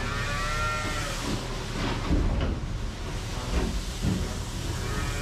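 A cow mooing, one drawn-out call near the start, over the steady low running of a telehandler's engine. A few short knocks come later.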